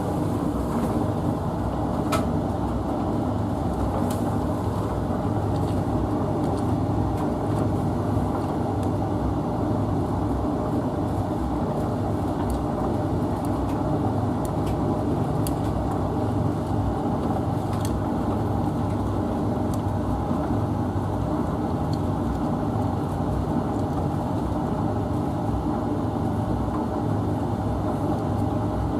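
Hotpoint Futura washing machine and Hoover Infinity tumble dryer running together: a steady motor-and-drum hum with a few faint clicks.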